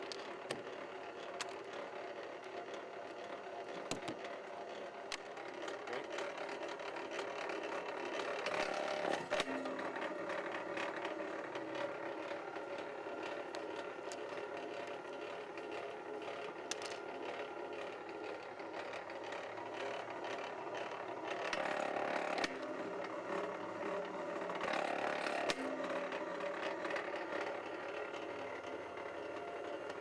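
A BLUEROCK MWS-808PMO motorized wire stripper runs steadily: its 1 HP gear-driven motor and cutter rollers hum, with scattered clicks. The sound swells for a few seconds about eight seconds in and again about twenty-one seconds in, as cable is fed through the cutting rollers.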